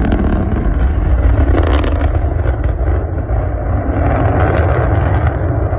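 Rocket roar: a loud, deep, steady rumble, with brief sharp crackles at the start and again nearly two seconds in.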